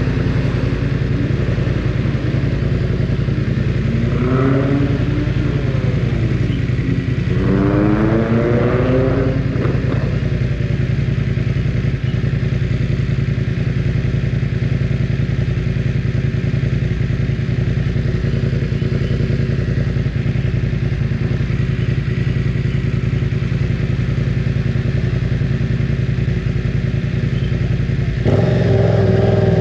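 BMW F900 R's 895 cc parallel-twin engine running loud under way. The engine note rises twice in the first ten seconds as it accelerates, holds steady for a long stretch, then gets louder near the end.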